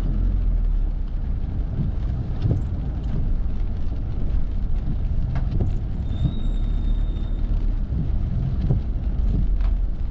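A car moving slowly in town traffic, heard from inside the cabin: a steady low rumble of engine and tyres. About six seconds in, a thin high tone lasts for about a second.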